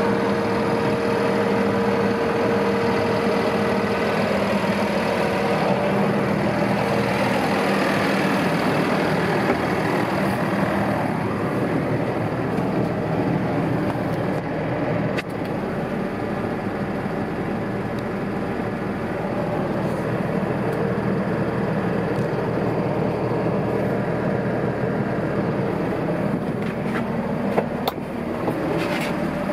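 2011 Fendt 820 Vario tractor's six-cylinder diesel engine idling steadily, with a few sharp clicks about halfway through and near the end.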